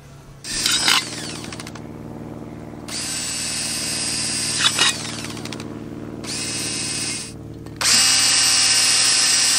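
Cordless drill boring holes through the bottom of a metal cup: the motor runs on and off while the bit bites into the metal in several spells, each with a high-pitched cutting noise. The loudest spell starts about eight seconds in.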